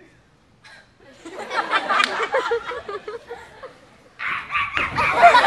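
Audience laughter, beginning about a second in and breaking out much louder about four seconds in.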